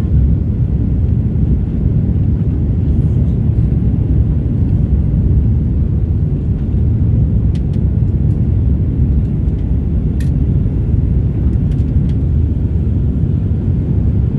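Steady low rumble of an Airbus A330-300 jet during its takeoff, with a few faint clicks on top.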